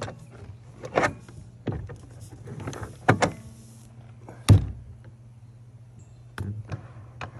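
Minn Kota Riptide Terrova bow-mount trolling motor being lowered by hand into its deployed position: the mount slides, rattles and clunks in short knocks, the loudest sharp clunk about four and a half seconds in. A steady low hum runs underneath.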